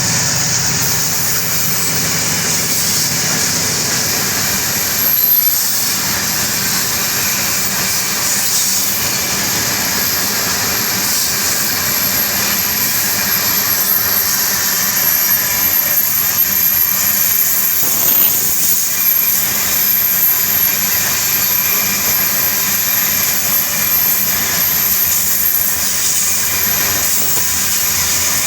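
Long iron ore train rolling past, its wagons' steel wheels running over the rails in a steady loud rush, with a thin high-pitched whine on top.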